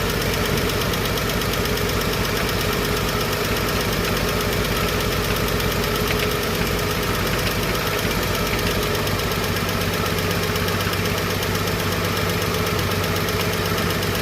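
Chevrolet 235 Blue Flame inline-six idling with its valve cover off, the valvetrain ticking as a valve is adjusted on the running engine to cure a lifter tick and slight misfire. The idle note deepens about nine seconds in.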